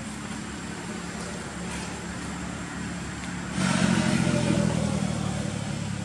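A motor vehicle's engine running with a steady low hum, growing suddenly louder about three and a half seconds in and easing off again.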